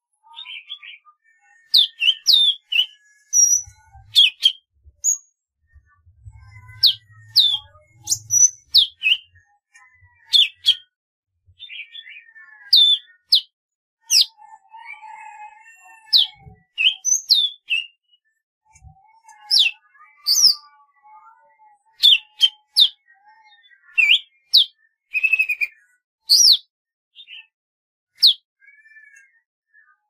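Golden-fronted leafbird singing: a rapid series of short, high whistled notes and chips, many sweeping quickly up or down, with short warbled phrases between them.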